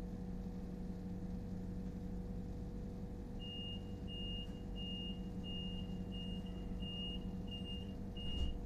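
Door warning beeper on a suburban train standing at a platform: eight short, high, evenly spaced beeps, about three every two seconds, starting a few seconds in. They sound over the steady hum of the train's equipment at standstill, and a thump follows near the end.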